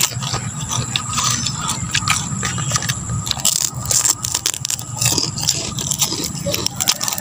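Crisp, irregular crunching and crackling of puffed beef chicharon being bitten and chewed, over a steady low hum.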